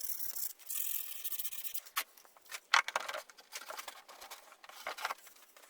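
Irregular scraping and rubbing of small plywood parts being worked and handled by hand, with a few sharper knocks and scrapes.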